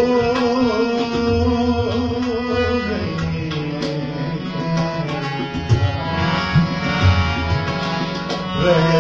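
Ghazal music with harmonium and tabla: a male singer holds one long wavering note for about the first three seconds, then the harmonium and the tabla's drum strokes carry on without voice.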